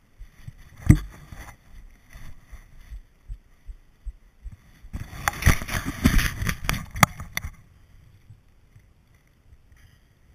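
Movement noise on a body-worn action camera in snow: a sharp knock about a second in, then a few seconds of crunching, knocking rustle as the wearer shifts on skis.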